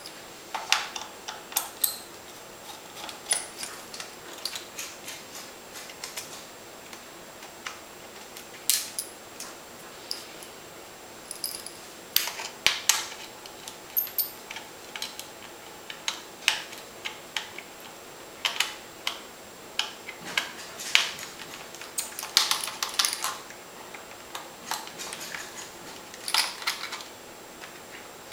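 Precision screwdriver working small screws out of a laptop's bottom case: scattered small metallic clicks and clinks of the screwdriver, screws and tools, with a few busier clusters of clicks.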